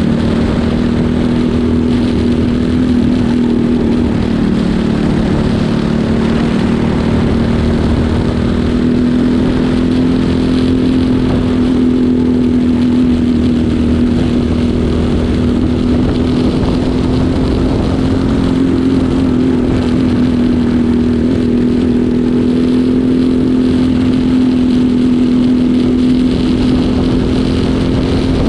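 Onboard sound of a Briggs & Stratton LO206 single-cylinder four-stroke kart engine running hard at high revs, its pitch holding nearly steady with slight dips and rises.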